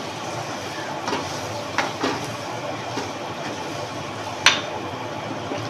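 Chicken pieces and onions frying in oil in a non-stick pan, stirred and turned with a wooden spoon during the browning (bhuna) stage. A steady sizzle runs under a few short knocks and scrapes of the spoon against the pan, the loudest about four and a half seconds in.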